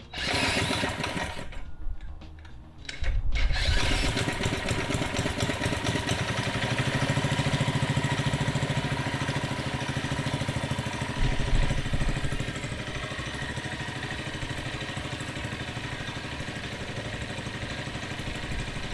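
Small engine with a newly fitted exhaust pipe: a first burst that dies out, then it starts about three seconds in and runs, with a brief rev around the middle before settling to a steady idle.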